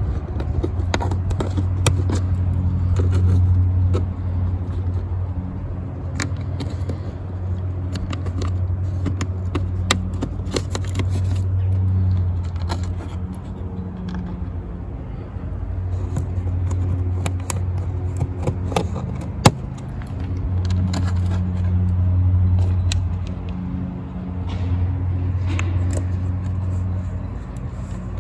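A small engine drones in the background, swelling and fading every few seconds; the owner took it for someone mowing. Over it come scattered clicks and taps of plastic push clips being pressed into a car's engine-bay trim panel, with one sharp click about two-thirds of the way through.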